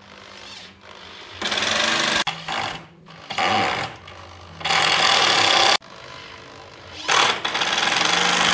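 Corded electric drill running in about five short bursts of roughly a second each, boring into or driving screws through pallet-wood boards.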